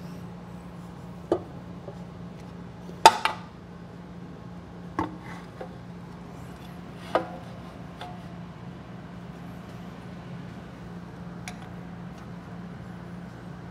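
The boxy housing of a home-built slow speed carbide grinder being tilted, set down and shifted on a granite surface plate, giving a few separate clunks and knocks, the loudest about three seconds in, followed by lighter ticks. A steady low hum runs underneath.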